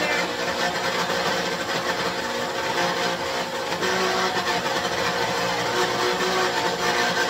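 Small single-serve blender running steadily with a loud motor whir, blending a smoothie of frozen fruit and collard greens.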